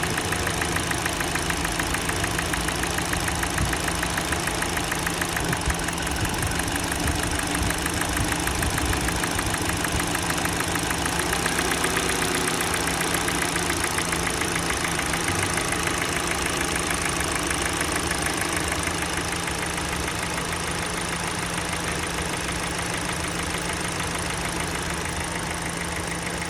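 Kia Sportage's G4NA 2.0-litre four-cylinder petrol engine idling warm, with a fast, even knocking tapping along with the engine speed. The engine is being checked for that knock by disconnecting ignition coils one at a time. The sound gets slightly quieter about two-thirds of the way in.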